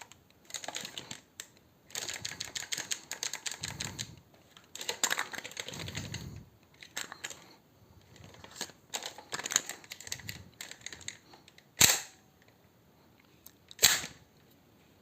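Airsoft gun being reloaded: runs of quick clicks and rattles of parts being handled, then two sharp, loud snaps about two seconds apart near the end.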